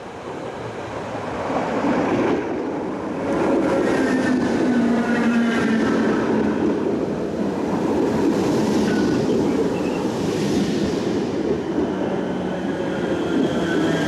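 Dublin DART electric multiple unit (8100 class) running alongside the platform: the rumble of its wheels on the rails grows louder over the first two seconds and then holds steady, with whining tones from the train that shift in pitch.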